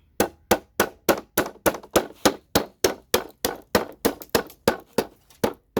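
Rapid, evenly paced hammer blows, about three or four a second, knocking CPU sockets off a computer motherboard, each strike a sharp clang with a short ring.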